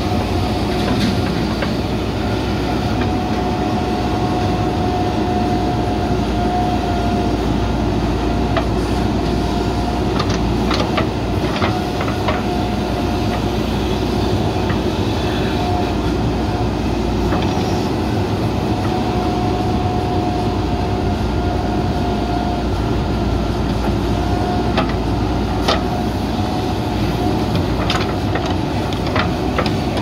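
JCB backhoe loader running steadily under load while its backhoe digs soil, with a steady whine that comes and goes and a few sharp knocks scattered through.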